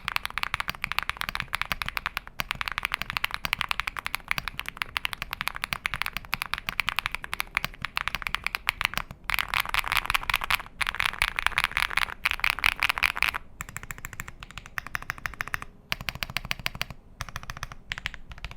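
Mechanical keyboard with Haimu Rock tactile switches being typed on quickly: a dense run of sharp keystroke clicks in bursts with brief pauses, sparser near the end. The metal inserts in the switches' bottom housing and stem pole give a clean, metallic, loud sound with no top-out noise, like a typewriter.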